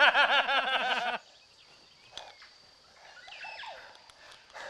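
Two men laughing hard together in rapid, rhythmic ha-ha bursts with a bleating quality, which break off abruptly about a second in.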